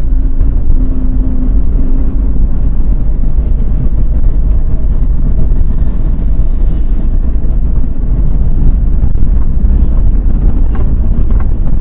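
Steady low rumble of a car on the move, heard from inside the cabin through a dashcam microphone: engine, tyre and wind noise blended together.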